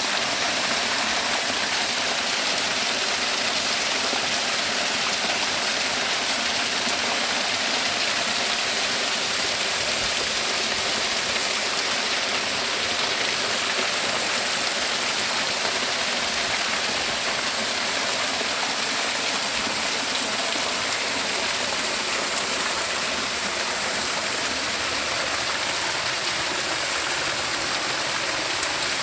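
Running water rushing steadily without a break.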